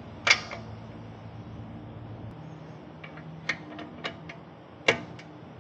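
Hand tools clicking and knocking on metal during suspension work: a sharp knock just after the start, a quick run of lighter clicks around three to four seconds, and another sharp knock near five seconds, over a faint steady hum.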